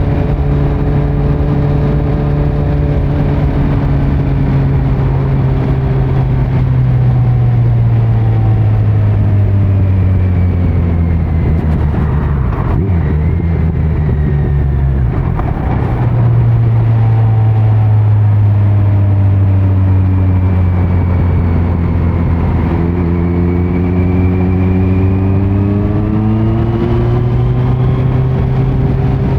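Kawasaki Z900 inline-four engine running through a Leo Vince muffler with no dB killer, heard on the moving bike. The engine note sags gently over the first half and is briefly unsettled a little before the middle. It then holds steady and climbs as the bike accelerates in the last several seconds.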